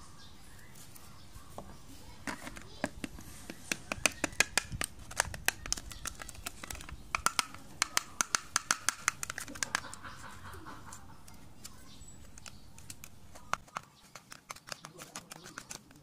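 Metal spoon clinking and scraping against a clear plastic cup while stirring a paste into liquid: quick repeated ticks, several a second, that pause for a few seconds and then start again near the end.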